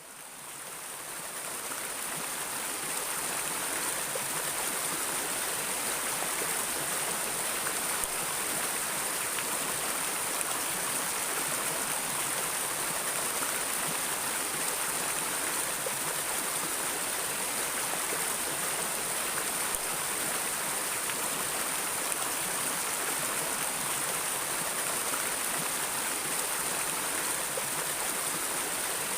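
Flowing river water running steadily, fading in over the first few seconds.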